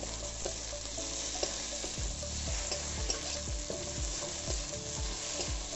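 Onion, ginger, garlic and tomatoes sizzling in oil in a metal kadhai while a metal spatula stirs them, scraping the pan in quick strokes about twice a second from about two seconds in.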